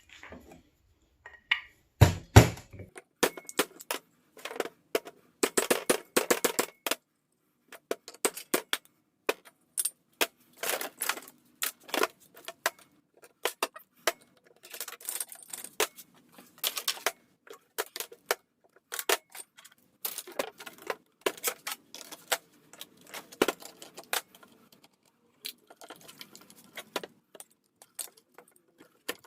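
Small pieces of scrap metal clinking and rattling as they are handled and dropped while being sorted by metal type, with a heavier thump about two seconds in.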